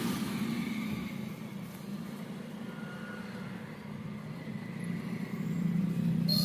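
Motor vehicle engine running nearby: a steady low hum that swells louder from about five seconds in, as of passing road traffic.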